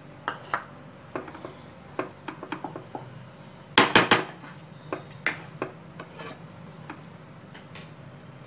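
A wooden spatula stirring and knocking in a non-stick pan of thick semolina khichdi, giving scattered clicks and scrapes. A quick run of louder knocks comes about four seconds in.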